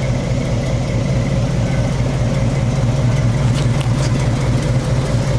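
Small-block Chevy V8 in a Toyota FJ40 idling steadily.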